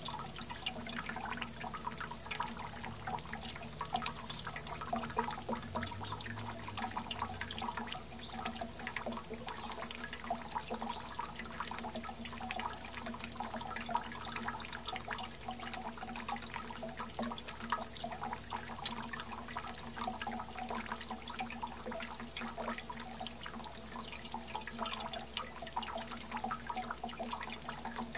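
Hummingbird Playground garden fountain splashing: thin jets of water falling as a steady patter of drops and trickles into its basins, over a faint steady hum.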